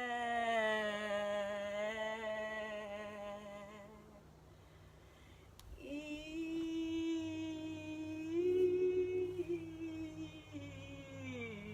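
A woman's voice singing two long, held 'eh' vowel tones, wordless vocalising used as a moving sound meditation. The first note sinks slightly in pitch and fades out. After a pause of about two seconds the second starts a little higher, wavers and lifts briefly midway, then slides down at the end.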